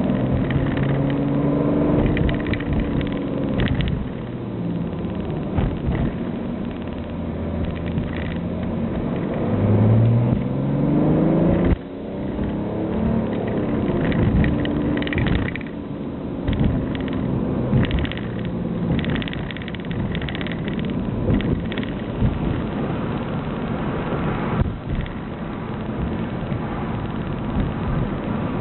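BMW E90 straight-six diesel with a straight-piped cat-back exhaust and no silencer, heard from inside the cabin while driving. The engine pulls with its pitch rising twice, drops suddenly at a gear change about twelve seconds in, then runs at a steadier cruise.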